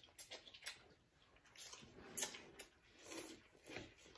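Eating sounds from people having rice noodles: wet slurps and chewing with short clicks of chopsticks and a fork. There are a few louder slurps in the second half, the loudest about two seconds in.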